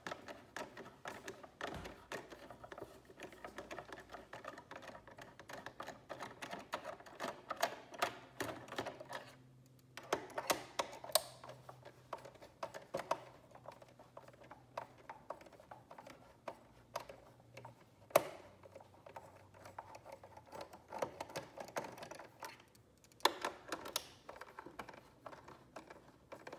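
A hand screwdriver turning screws out of a plastic shredder housing: runs of quick small clicks and scrapes, pausing briefly about ten seconds in, with one sharper click a little after the middle.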